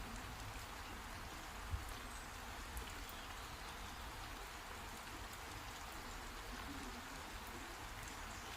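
Steady heavy rain falling, an even hiss of drops, with a single low thump a little under two seconds in.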